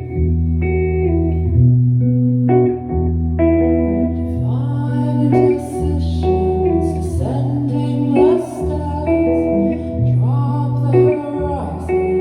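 A live band playing, with long held bass notes changing every second or two under steady guitar tones, and a voice singing from about four and a half seconds in.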